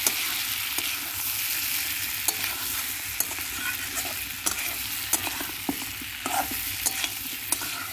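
Mutton and potato pieces sizzling as they are dry-fried in spices (kosha) in a steel wok, stirred with a metal spatula that scrapes and clicks against the pan now and then.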